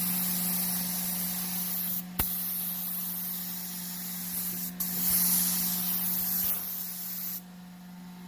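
Paint spray gun hissing as it sprays primer, the trigger let off briefly twice and released near the end. A steady low hum runs underneath.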